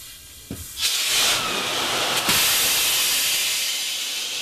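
Submarine torpedo tube test-fired: a loud rush of high-pressure air released through the firing valve to spin up the tube's ejection turbine. It starts about a second in with a thump, then hisses steadily and slowly eases off.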